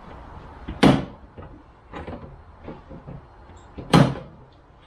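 Hard plastic knocks and clicks as the plastic frunk tub and its clipped-in light housing of a Tesla Model Y are pried and worked loose by hand: two loud sharp knocks about three seconds apart, with fainter clicks between.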